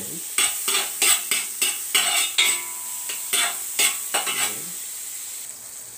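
A utensil scraping and tapping around a hot metal wok, about three strokes a second, while butter melts and sizzles in it. The strokes stop a little after four seconds in, leaving a quieter sizzle.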